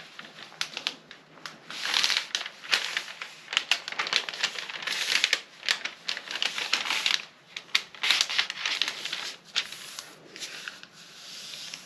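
Fabric rustling and swishing in irregular bursts, with small crisp clicks, as a length of cloth is folded over on itself by hand. The handling tails off near the end.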